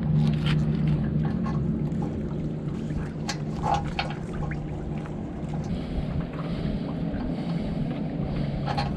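Small clicks and taps of metal hardware as a nut is fitted by hand onto a screw at a boat lift's cable bracket, over wind on the microphone and a low steady hum that is strongest in the first couple of seconds.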